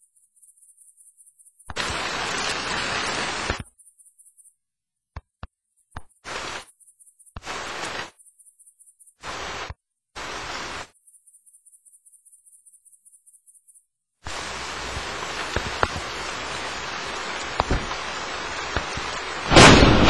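Rain that starts and stops abruptly in several short spells, then falls steadily from about two-thirds of the way through. A loud thunderclap comes near the end.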